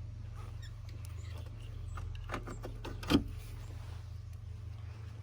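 Light clicks and one sharp knock about three seconds in as hinge hardware is handled and fitted on the hatch glass, over a steady low hum.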